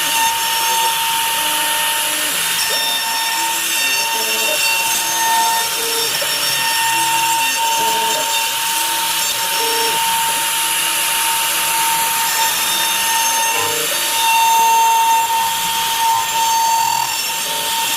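CNC router spindle running with a steady high whine while its bit rough-cuts wood, a continuous rasping cutting noise. The whine is a little louder for a moment about 15 seconds in.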